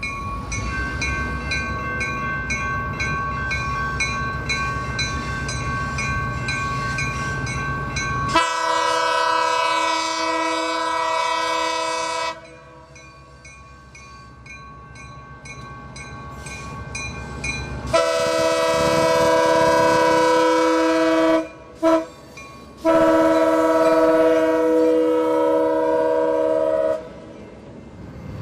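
EMD GP10 diesel locomotive running with its bell ringing steadily, then sounding its horn in four blasts, long, long, short, long: the standard signal for a grade crossing.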